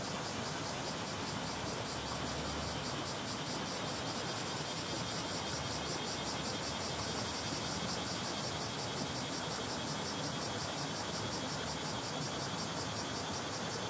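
Shallow stream flowing over stones, a steady rushing babble with a little force to it. Cicadas buzz over it in a high, fast-pulsing drone.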